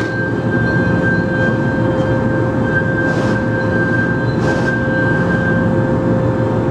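CNC milling machine cutting a metal plate under flood coolant: a steady rush of spray and machining noise with a constant whine held at one pitch. There are short hisses about three and four and a half seconds in.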